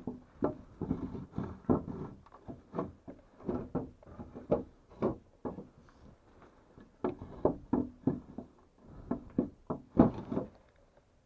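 Irregular knocks and thuds of old wooden boards and debris being stepped on and pushed aside in a ruined log house, one or two a second, with the loudest thud about ten seconds in.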